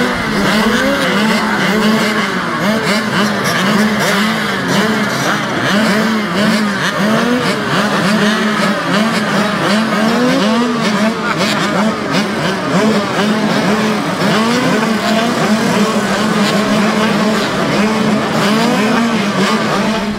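Several youth mini motocross bikes revving together at the starting gate, their engine notes rising and falling over one another as the riders blip the throttles before the start.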